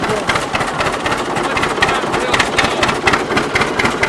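Threshing machine running, belt-driven by a Rumely OilPull tractor, with a dense, irregular mechanical clatter over the engine's steady running.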